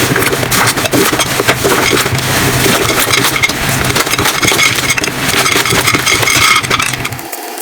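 Slime being squeezed and worked by hand: a fast, dense run of wet crackles and pops as air pockets burst, with a steady low hum underneath that cuts off just before the end.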